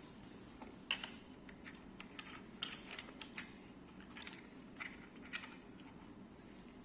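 Faint, scattered light metallic clicks and scrapes of a hand tool working on screws, being loosened on both sides of the handlebar fitting, over a low steady room hum.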